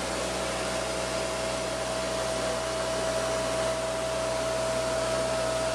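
Bee vacuum's motor running steadily, a constant hum with one strong even tone on top, as it draws bees off the exposed comb.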